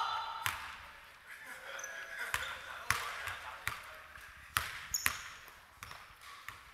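A basketball bouncing on a hardwood gym floor: about half a dozen sharp, irregularly spaced bounces in a large, reverberant sports hall.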